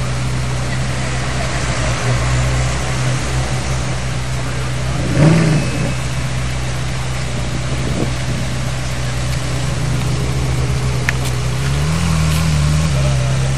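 Ferrari 458's V8 idling steadily, with a short blip of revs about five seconds in and a slight rise in revs near the end.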